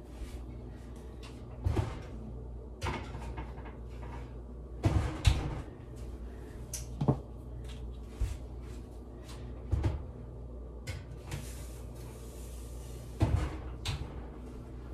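Metal loaf pans knocking against oven racks and the oven rack and door clanking as bread pans are loaded into an electric oven: about six sharp knocks spread out, the loudest a double knock about five seconds in and one near the end as the oven door is pushed shut, over a steady low hum.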